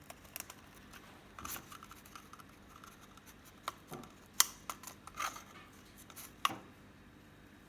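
Peach-faced lovebird chewing and tearing at a cardboard toilet roll with its beak: scattered sharp snips and crunches, uneven in spacing and loudness, with the loudest a little past halfway through.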